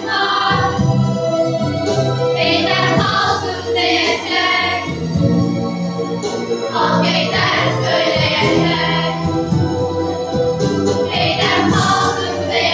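Group of children singing together over an electronic keyboard accompaniment that holds sustained chords.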